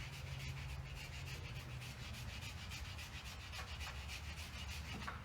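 Brake rotor being rubbed by hand to scour off brake dust: quick, even back-and-forth scraping strokes, several a second, over a low steady hum.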